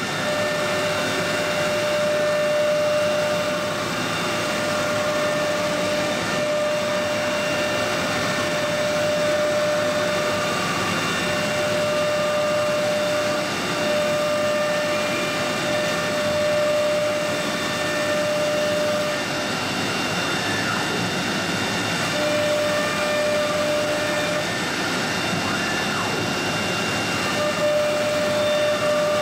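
CNC router with air-cooled spindles running a job: a steady mechanical whine with a tone that breaks off and comes back several times.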